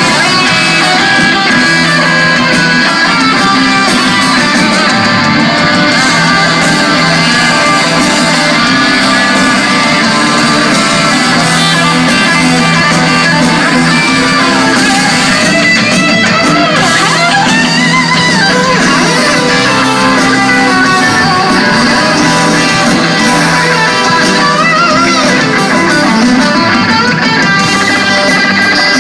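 Live rock band playing loudly, led by an electric guitar whose notes bend up and down over a steady bass line.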